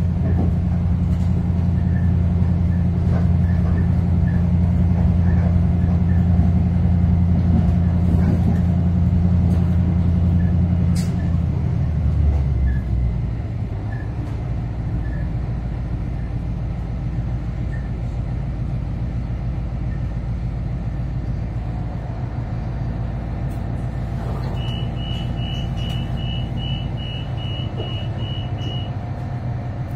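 Diesel engine of a 3000-class diesel-electric railcar droning steadily under power, heard inside the moving car; about twelve seconds in the drone drops away as the engine throttles back, leaving quieter rolling noise. Near the end comes a run of about ten short high beeps.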